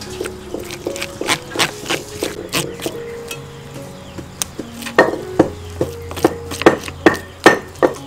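Knife chopping on a wooden cutting board: sharp knocks, irregular at first, then louder and steadier at about two to three a second from about five seconds in. A gentle background melody plays under it.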